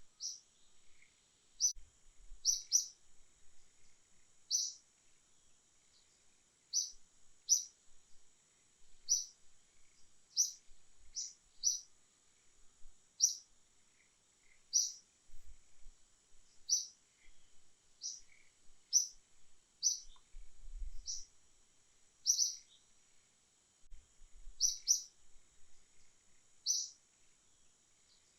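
A bird giving short, sharp, high-pitched chirps, repeated irregularly every second or two, over a steady high-pitched insect drone. A few faint low thumps come through now and then.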